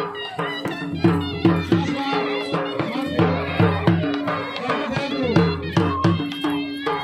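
Folk music: a dhol drum beating a steady rhythm under a reedy wind instrument playing a held, wavering melody.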